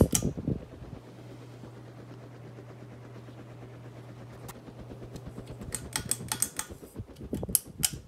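A 42-inch Littleton two-blade ceiling fan running, its motor humming steadily and low. Sharp clicks and knocks come at the start and again from near the six-second mark, as the fan housing and light are handled, and the hum stops partway through these.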